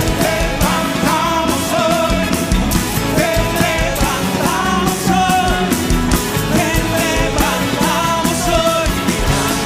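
Worship band playing a rock-style song with a voice singing over it.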